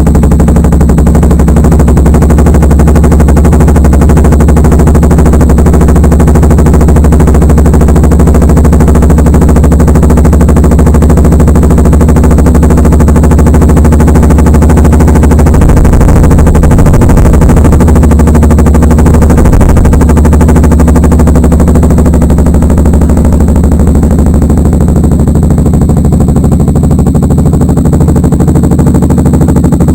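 Single-cylinder engine of a Kawasaki Ninja 250 Mono running steadily at idle through an aftermarket Akrapovic exhaust, a loud, deep, rapid pulsing note.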